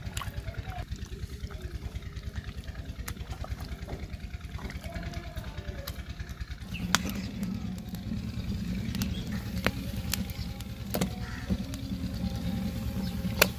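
A small engine running as a steady, fast low thumping, growing louder about seven seconds in, with a few sharp snaps from wood burning in a clay tandoor.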